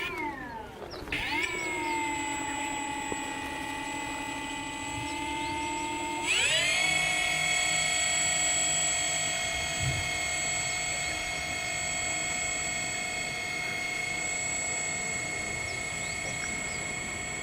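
Electric motors and propellers of an RC Avios Albatross HU-16 flying-boat model whining. The pitch swings up and down in the first second with throttle changes, then holds steady. About six seconds in the throttle opens sharply to a higher, louder, steady whine that holds to the end.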